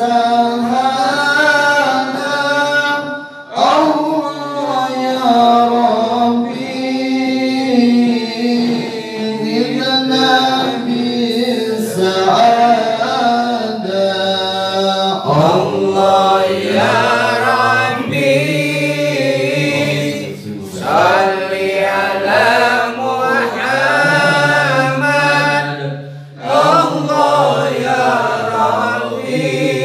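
Men's voices chanting Arabic sholawat (devotional praise of the Prophet) unaccompanied through microphones, in long drawn-out phrases with held notes that bend in pitch and a few short breaths between phrases.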